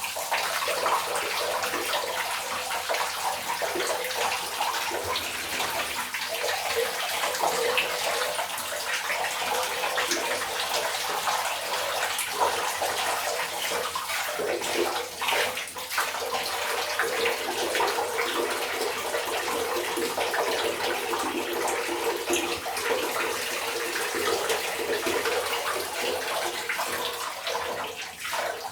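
Tap water running steadily and splashing in a sink while a batch of Lego bricks is rinsed.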